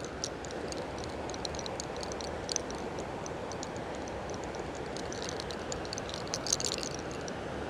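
Steady rush of a river with small, scattered crackles and clicks from a fine lock of hair being twisted around the fingers and pulled in the hair-cracking technique. A denser run of crackles comes about six and a half seconds in.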